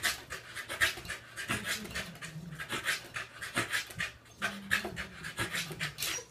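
Corgi panting hard in quick, breathy strokes, about three or four a second, while it bounces up and down.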